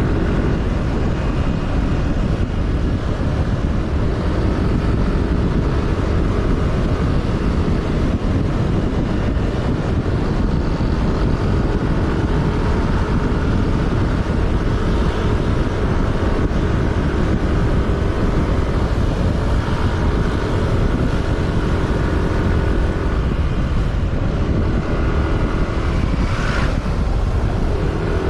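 Steady engine and road noise from a vehicle driving along, its engine note drifting up and down a little, with a brief higher sound a couple of seconds before the end.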